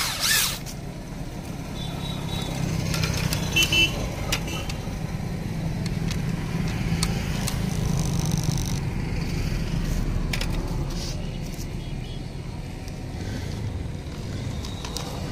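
Corded electric drill whirs briefly at the very start as it drives a screw through a plastic CCTV junction box into its metal mounting plate. After that, a steady low rumble carries on, with scattered light clicks and taps.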